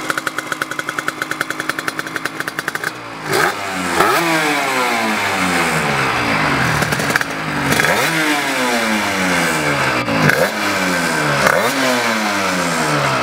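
Honda RS 125 RF's 125 cc single-cylinder two-stroke racing engine idling with a fast, even pulsing, then revved in repeated sharp throttle blips from about three seconds in, the revs falling away slowly after each one.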